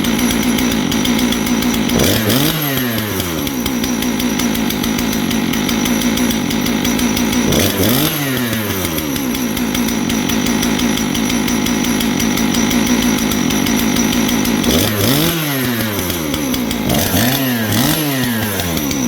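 A 661 clone two-stroke chainsaw running at high revs, its engine speed sagging and picking back up several times. The uneven running comes from a finicky carburetor that is not yet tuned.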